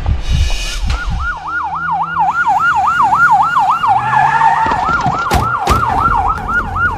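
Police car siren wailing fast, its pitch sweeping up and down about three or four times a second, coming in about a second in after a few low thumps.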